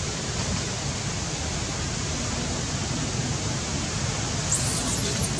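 Steady, fairly loud hiss of background noise with a low rumble underneath, and a few faint high squeaks near the end.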